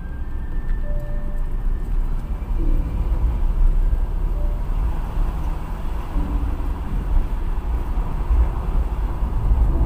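Car moving along a road, heard from inside the cabin: a steady low rumble of engine and tyre noise.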